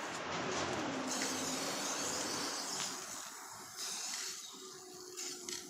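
Aerosol spray-paint can hissing: one long spray of about three seconds, then a shorter, quieter burst.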